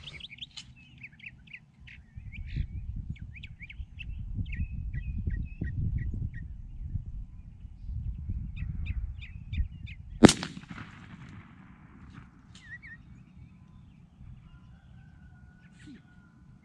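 A single shot from a 20-gauge shotgun loaded with Federal TSS turkey shot, about ten seconds in, heard from downrange beside the target, ringing out briefly after the blast.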